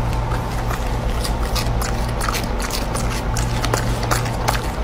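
Husky chewing a small crunchy snack: irregular crisp clicks over a steady low hum.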